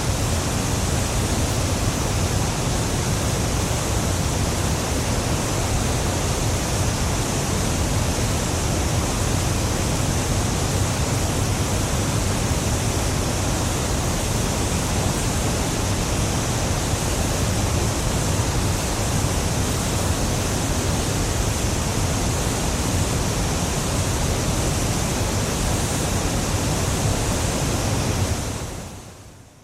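Niagara Falls: a steady rush of falling water that fades out near the end.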